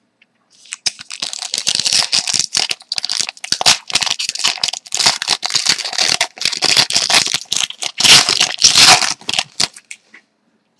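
Foil wrapper of a Rookie Anthology hockey card pack crinkling and tearing as it is opened by hand. It starts about half a second in and stops shortly before the end.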